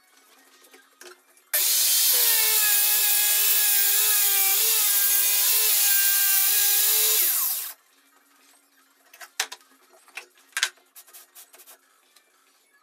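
Handheld circular saw cutting through an MDF sheet for about six seconds, starting abruptly about a second and a half in, its motor whine steady under the cutting noise, then winding down in pitch as the trigger is released. A few sharp knocks follow near the end.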